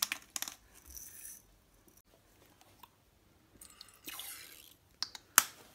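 Jars, lids and containers handled on a kitchen counter: a few clicks at the start, a soft scraping rustle about four seconds in, and a single sharp click near the end.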